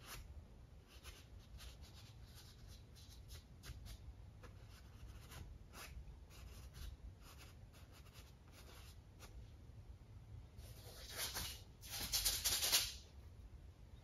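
Thin paintbrush dabbing and flicking acrylic paint onto a primed stretched canvas: a run of soft, short, scratchy strokes, with a louder scratchy rustle for about two seconds near the end.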